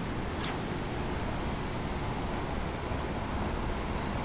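Steady rushing noise of water pouring from a dam's spillway and running past the bank, with a brief hiss about half a second in.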